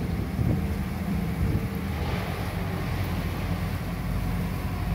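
Low, steady rumble of a large motor yacht's engines as it moves slowly through the water, with a faint steady hum in it.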